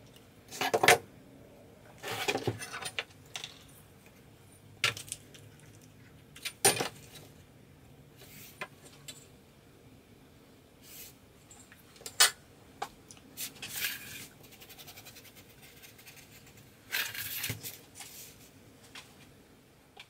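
Tools, a ruler and masking tape being handled on a worktable: scattered sharp clicks and knocks as things are picked up and set down, with a few longer rustles, and quiet gaps in between.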